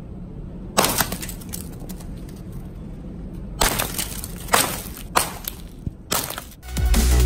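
A claw hammer striking a hard, glassy green ball on concrete, about six sharp cracking smashes as it shatters and the chunks scatter. Electronic music with a heavy beat comes in near the end.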